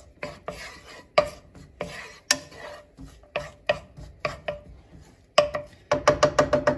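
Wooden spatula stirring minced garlic in olive oil in a nonstick skillet, knocking and scraping against the pan about twice a second, then a quicker run of knocks near the end.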